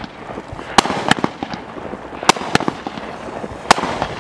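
Dominator Air Aid aerial firework firing shot after shot: five sharp bangs, falling roughly in pairs about a second and a half apart, with crackling and fizzing between them.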